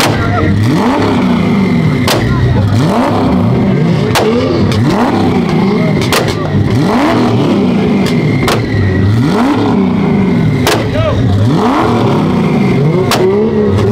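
Car engine revved hard over and over, about once a second, each rev rising sharply and falling back, with sharp exhaust pops scattered between.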